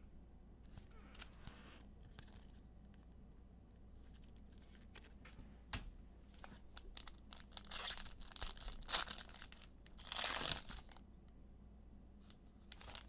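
Foil trading-card pack wrappers crinkling and being torn open, with the loudest, longest rip about ten seconds in, among scattered light clicks.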